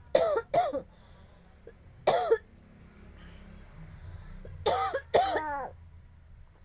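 A baby making imitation coughs: five short, high-pitched cough sounds in three groups, two, then one, then two.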